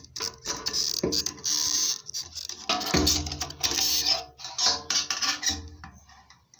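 Rustling, scraping and light clattering of hands working a motorcycle fuel pump assembly into the tank opening, in short irregular bursts.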